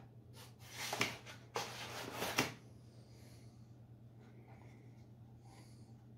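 Rustling and scraping as a light plastic control box is lifted out of its packaging tray and handled, with two sharp clicks, over the first two and a half seconds. A low steady hum runs underneath.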